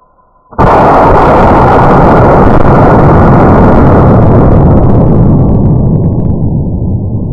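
A 50-pound exploding target detonating: a sudden, very loud blast about half a second in that stays at full level for several seconds and then slowly dies away as a long rumble.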